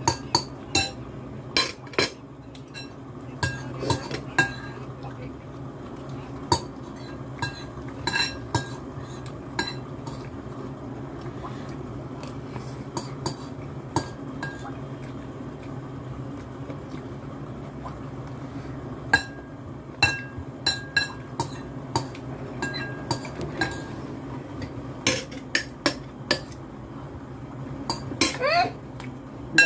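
Metal cutlery clinking and scraping against a glass bowl, in irregular sharp clinks, some ringing briefly, over a steady low hum.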